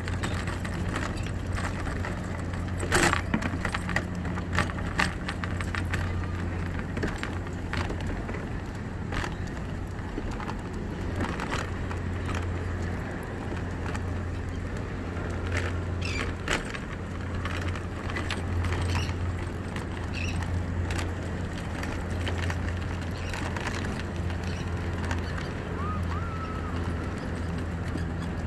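Electric scooter motor humming steadily as it rolls along a wooden pier deck, with clicks and rattles as the wheels cross the boards.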